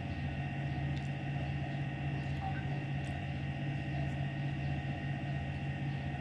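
Steady low electrical hum with a fainter high whine over it, and a few faint clicks of chewing as a skewer of grilled chicken satay is bitten into.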